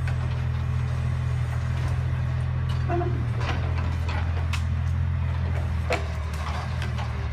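Steady low rumble of an idling engine, with a few scattered light clicks and snaps.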